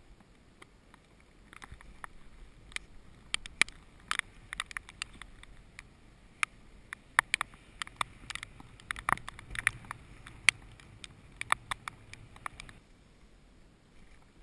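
Heavy raindrops tapping irregularly on a surface close to the microphone, several sharp ticks a second, over a faint low wind rumble. The tapping stops about two seconds before the end.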